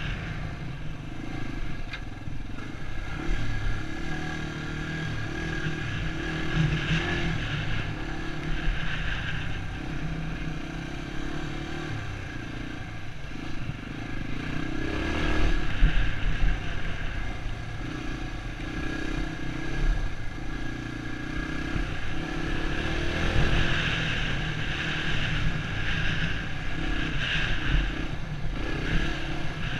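Dirt bike engine running under a rider on a dirt trail, the throttle opening and closing so the engine note rises and falls, loudest about halfway through.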